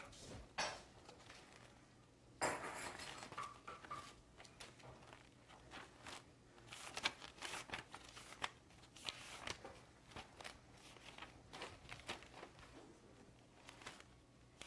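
Kitchen clatter: utensils and dishes clinking and knocking in scattered, irregular clicks, with a short burst of hiss about two and a half seconds in.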